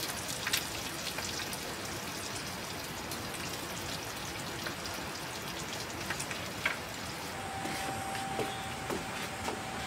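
Pork belly sizzling in a frying pan: a steady crackling hiss with scattered pops.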